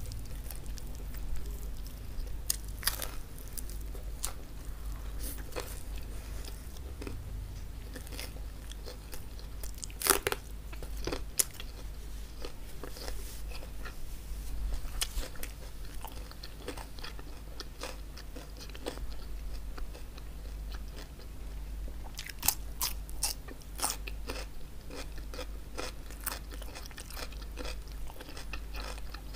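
Crunching bites and chewing of crispy chicken hawawshi (Egyptian stuffed bread baked crisp) and raw cucumber, with sharp crackles from the crust. The loudest crunches come about ten seconds in and again a little after twenty seconds. A steady low hum runs underneath.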